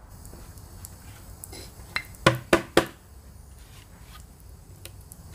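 Wooden boards being handled on a plastic workbench: a few faint taps, then a quick run of about four sharp wooden knocks and clatters between two and three seconds in.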